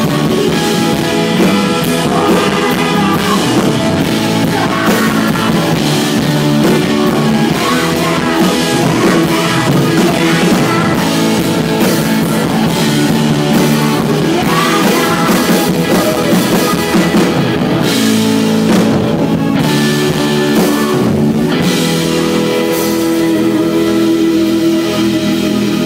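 Live alternative rock band playing: singing over electric guitar and drum kit. Near the end the drumming thins out and a held chord rings on.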